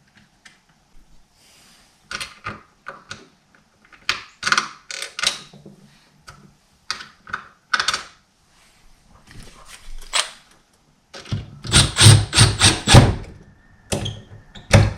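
Door lock parts being handled and screwed together: scattered clicks and knocks of the metal and plastic lock pieces against the door, then a run of rapid, loud knocking and rattling for about two seconds near the end, starting again just before it.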